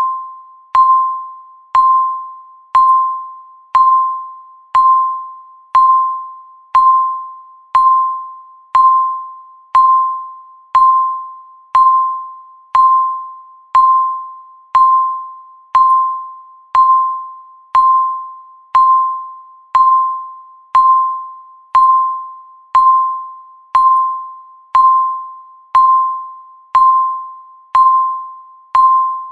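Countdown timer's tick sound: a short, ringing, bell-like tone struck once a second, each one fading away before the next, in an unbroken steady series.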